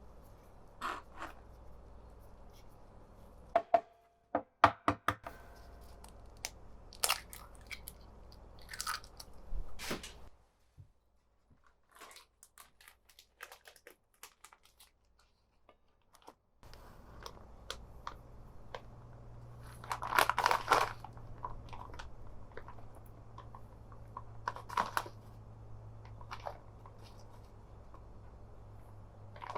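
Scattered crunches, taps and clicks of food being prepared by hand in a kitchen, with a long pause of near silence midway and a low steady hum in the second half.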